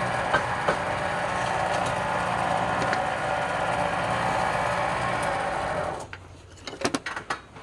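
Wood being worked on a running wood lathe: a steady rasping noise over the motor's hum. It stops suddenly about six seconds in, leaving a faint hum and a few sharp clicks.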